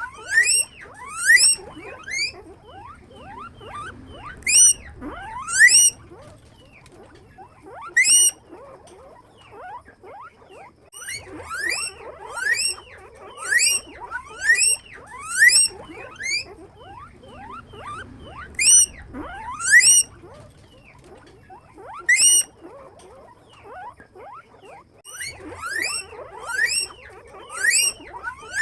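Guinea pigs wheeking: loud, short squeals that each rise sharply in pitch, repeated in quick runs of two to four with short pauses, over a constant bed of fainter squeaks.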